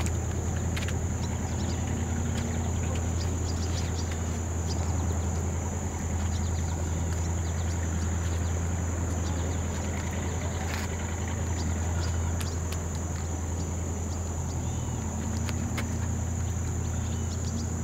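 Steady outdoor ambience: a constant low rumble with a thin, continuous high-pitched insect drone over it, and scattered light clicks and taps.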